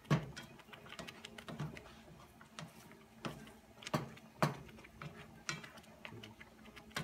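A cooking utensil tapping and scraping against a pan while eggs are stirred, in irregular sharp clicks about once a second.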